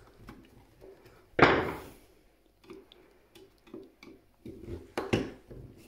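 Knocks and clicks of a screwdriver and the metal case of a computer power supply being handled while trying to get at a stubborn screw. The loudest is a single sharp knock about a second and a half in, followed by lighter taps and clicks.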